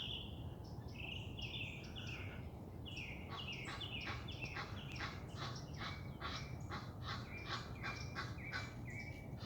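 Egyptian geese honking: a few scattered harsh honks, then from about three seconds in a fast repeated series of about three honks a second.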